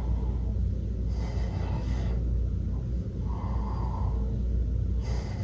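A man breathing slowly in and out while exercising, with soft breaths about a second in and again near the end, over a steady low rumble.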